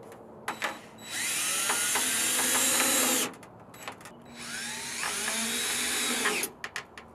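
DeWalt cordless drill driving sheet-metal screws into an aluminium downspout, in two runs of about two seconds each. The motor whine rises as it winds up and drops off as each screw seats, with a few clicks in between.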